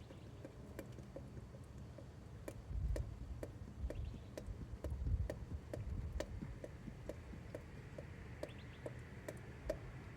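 Regular ticking, about two to three clicks a second, with low rumbling bursts about three and five seconds in.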